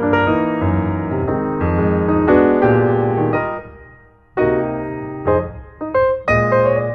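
Piano music, a melody over chords. It dies away about four seconds in, then comes back sharply with new notes half a second later.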